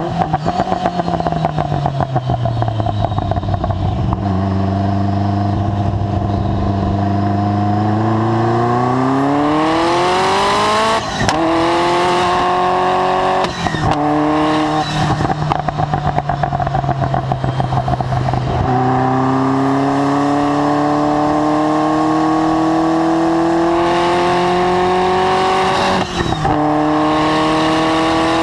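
Ferrari F40's twin-turbo V8 through a Tubi Style exhaust, driven hard on a track. The engine note falls as the car slows for the first few seconds, then climbs through the gears under acceleration, with sharp upshifts about eleven seconds in, again a few seconds later, and near the end. A hiss builds just before some of the upshifts.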